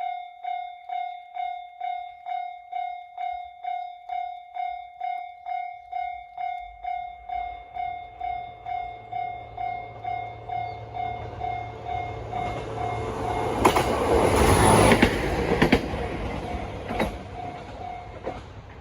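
A Japanese level crossing's alarm rings in a steady pulsing tone, about two to three rings a second. A train approaches with a growing rumble and passes loudly about 13 to 16 seconds in, its wheels clacking over the rail joints with a high squeal. The alarm stops just before the end.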